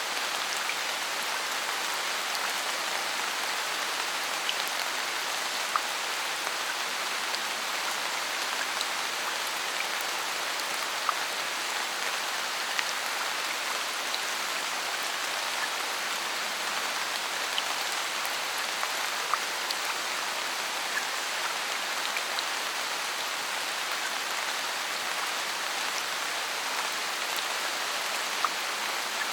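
Steady rain falling in a forest, a dense even hiss with individual drops ticking now and then.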